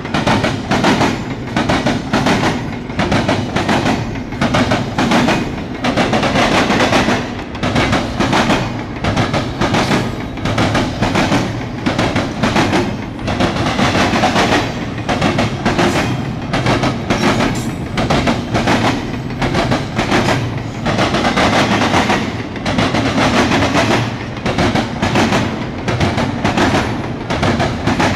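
Steel wheels of a passing double-stack intermodal train's container well cars clattering loudly over the track, in repeating clusters of sharp clacks and bangs every second or two.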